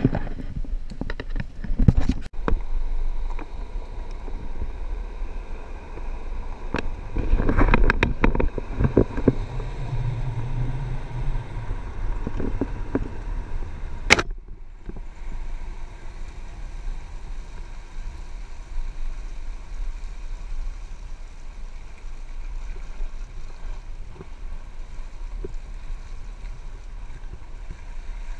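Steady low rumble of an SUV crawling along a rough forest track, picked up by a camera held out of the window on a pole. Branches and leaves scrape and knock against the camera, in clusters in the first half and once sharply about halfway through.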